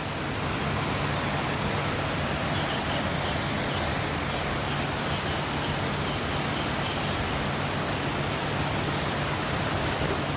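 Steady rush of a fast-flowing stream, an even, unbroken noise with a faint low hum underneath.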